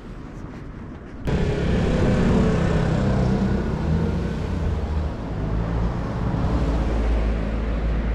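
Road traffic: a motor vehicle's engine and tyre noise, starting abruptly about a second in and continuing steadily.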